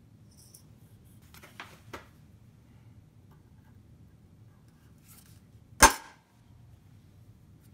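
A center punch striking the steel knife tang once with a sharp metallic snap, about three quarters of the way through, dimpling the marked hole spot so the drill bit won't wander. A couple of faint light clicks come earlier.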